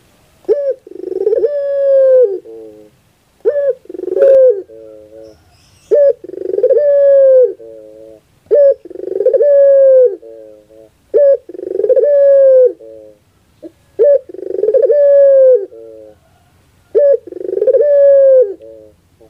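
Puter pelung (domestic ringneck dove) cooing: seven repeated coo phrases, about one every two and a half seconds. Each phrase has a short opening note, a long drawn-out coo and a quick trailing run of short notes.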